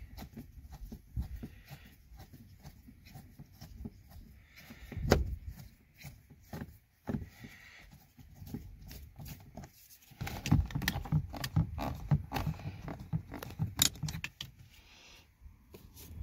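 Phillips screwdriver turning out the screw behind a Buick Regal's plastic interior door handle: scattered small clicks and knocks of the tool and screw in the handle recess, with one louder knock about five seconds in and a denser run of clicks and knocks from about ten to fourteen seconds.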